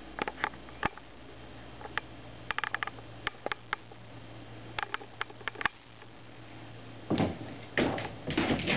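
A kitten and a cat playing with a toy: light clicks and taps scattered throughout, then a louder scuffling rustle over the last two seconds or so.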